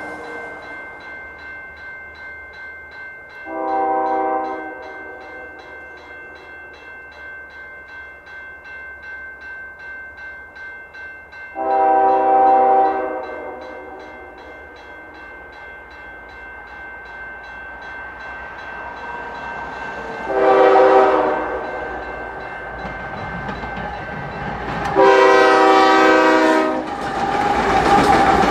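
A diesel freight locomotive's air horn sounds four blasts for a grade crossing, the second and last held longest, while the crossing's warning bell rings steadily at a quick even beat. Near the end the lead locomotives pass close by with a rising rumble of engines and wheels.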